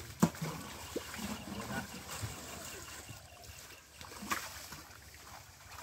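Water splashing and trickling, with a sharp splash about a quarter of a second in and another about four seconds in.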